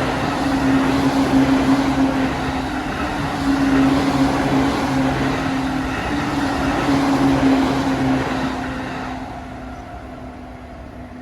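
JR Yokosuka Line electric train running past over a level crossing: loud, continuous rolling noise with a steady low hum, fading away over the last few seconds as the train moves off.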